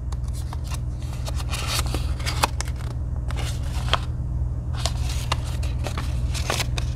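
A paper pamphlet and a plastic knife box being handled on a table: a string of irregular crinkles and small clicks over a steady low hum.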